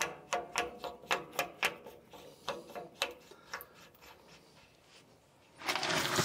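Metal filler cap being screwed back onto the hydraulic oil filler neck of a Caterpillar D4D dozer: a run of quick light clicks, about three or four a second. Near the end, a louder scraping rustle as the seat cushion is lifted.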